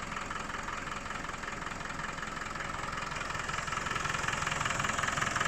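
Land Rover 200Tdi 2.5-litre four-cylinder turbodiesel idling steadily, getting a little louder about two-thirds of the way through.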